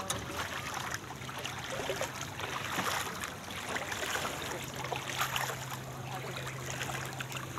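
Floodwater sloshing and splashing in irregular small bursts, with a steady low hum underneath.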